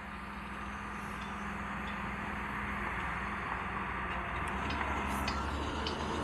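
A vehicle engine running steadily with a low hum and a broad hiss, slowly getting louder, with a few light ticks in the second half.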